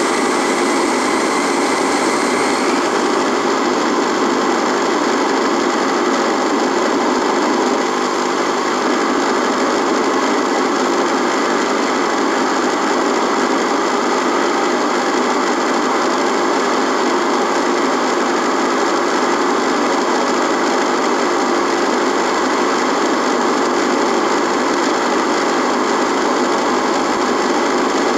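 Radio buzzing with static: a steady, dense hiss and buzz with several steady tones running through it. A higher layer of hiss fades out about three seconds in.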